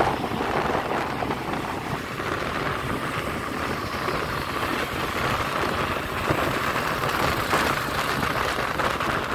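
Steady noise of a moving motorbike ride: engine and wind rushing past, with no change through the stretch.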